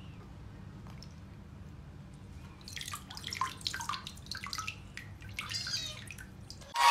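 Water splashing and dripping in a small basin as a kitten is bathed: quiet for the first couple of seconds, then a few seconds of irregular small splashes and drips. Applause cuts in loudly right at the end.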